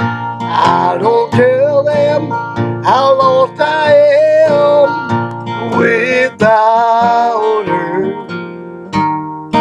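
A man singing a country song with acoustic guitar accompaniment, holding long notes.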